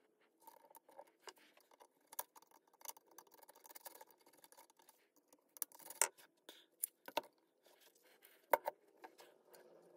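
Irregular small clicks, taps and scrapes of hand work on small parts, with a few sharper clicks about six, seven and eight and a half seconds in.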